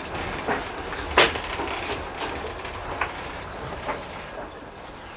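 Railway passenger carriage rolling along the track: a steady rumble with sharp knocks from the wheels and carriage roughly once a second, the loudest about a second in. The rumble grows quieter toward the end.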